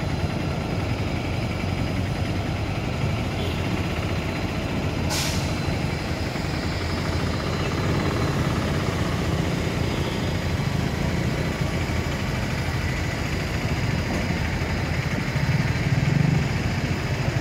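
A heavy diesel engine running steadily, with a brief hiss about five seconds in.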